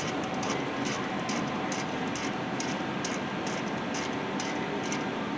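Ratchet clicking in short, regular bursts, about two a second, as the 12mm caliper bolts are run in.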